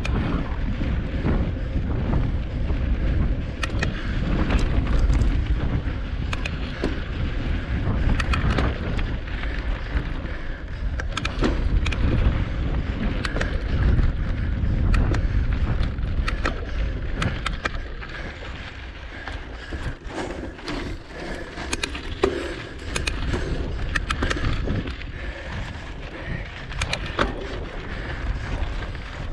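Cross-country mountain bike ridden fast over rocky, gravelly singletrack, heard from a camera mounted on the bike. Tyres rumble and crunch over stones, with wind buffeting the microphone and frequent sharp rattles and clicks from the bike over bumps. It gets quieter for roughly the last third.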